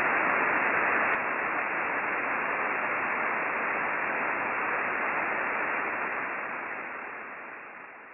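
Static hiss from an Icom IC-9700's receiver in single-sideband mode, tuned to a linear satellite's downlink with no signal on it. It steps down slightly about a second in, then fades out over the last couple of seconds.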